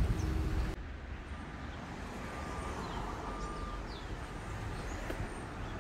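Outdoor street ambience: a steady low hum of distant traffic, with a few faint high chirps. The sound drops suddenly in level under a second in.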